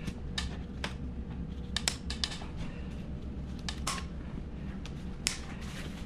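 Side cutters snipping zip ties on foam-wrapped e-trike packing: scattered sharp clicks at irregular intervals over a steady low hum.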